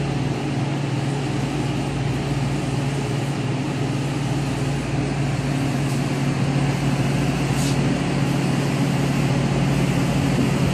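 Steady, even mechanical hum of a BUNN frozen slush machine's motors and refrigeration running close by while green slush is drawn from its tap into a cup.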